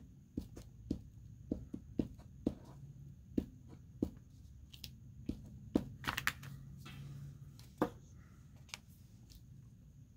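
Paper crafting at a tabletop: a glue stick rubbed over paper and a paper cut-out handled and pressed down, making many light taps and clicks, with a brief rubbing rustle about six seconds in.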